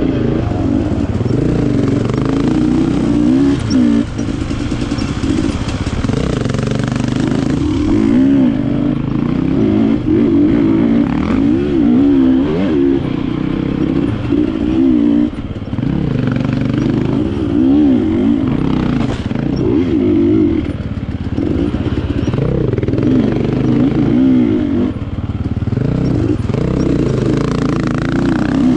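KTM enduro dirt bike engine ridden on a trail, the throttle opening and closing so the engine pitch rises and falls every second or two, with short lifts off the throttle about 4 and 15 seconds in.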